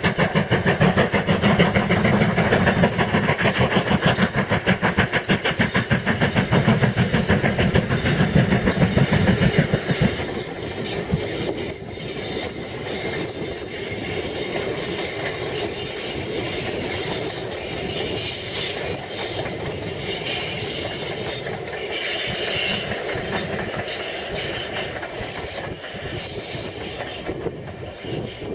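LNER Thompson B1 steam locomotive No. 1264 passing under power, with loud, fast exhaust beats. About ten seconds in the engine has gone by and the sound drops to the quieter, steady rolling and clickety-clack of its coaches' wheels on the rails.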